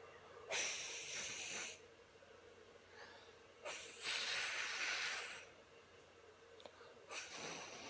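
A child breathing right against a phone's microphone: three long, rushing breaths about three seconds apart.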